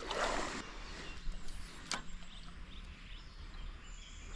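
Quiet riverside ambience: a soft steady rush of river water, with a brief swish at the start, a single sharp click about two seconds in, and faint bird chirps.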